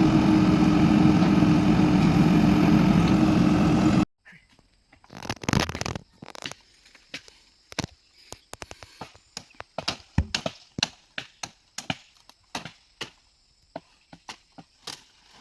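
A machine engine running steadily, cutting off abruptly about four seconds in. Then a quiet stretch broken by many short, sharp, irregular knocks and clicks.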